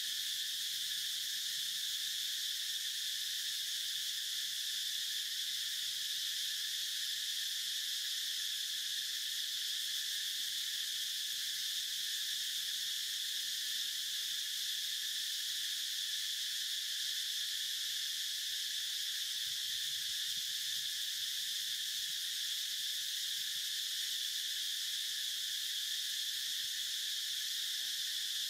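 Steady, high-pitched insect chorus buzzing without a break.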